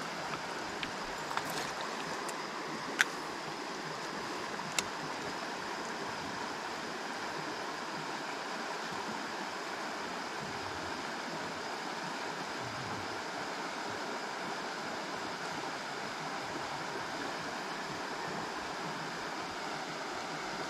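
A creek running full, a steady rush of flowing water. A few sharp clicks sound in the first five seconds, the loudest about three seconds in.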